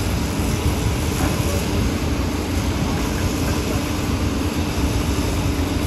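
Diesel engines of Hitachi excavators and a dump truck running steadily with a constant low drone.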